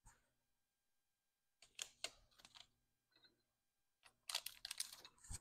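Faint metallic clicks and rattles of a spanner on the lathe's change-gear nuts as the gears are tightened in mesh. They come in two short clusters, one about a second and a half in and a busier one from about four seconds in that ends in a sharper click.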